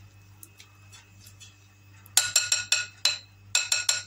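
A whisk striking the side of a glass mixing bowl in two quick runs of ringing clinks, about five and then four, after a couple of seconds of faint stirring clicks.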